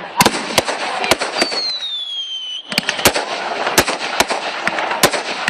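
Fireworks display: a rapid series of sharp bangs over dense crackling. A whistling firework gives a falling whistle from about a second and a half in, and the bangs carry on after a brief lull near the middle.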